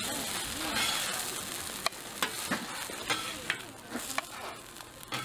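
Squid and chili pancake (pajeon) frying in oil on a griddle, a steady sizzle, with a string of sharp clicks and taps over its second half.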